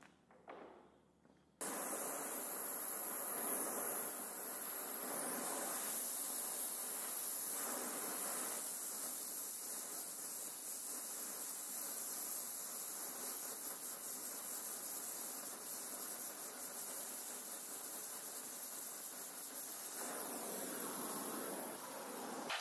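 Gas welding torch flame burning with a steady hiss while aluminium body panels are welded. The hiss starts abruptly about a second and a half in.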